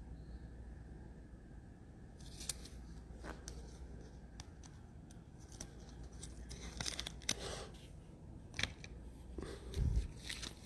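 Faint handling of trading cards and their packaging: scattered soft clicks and rustles with a few short tearing sounds, starting about two seconds in.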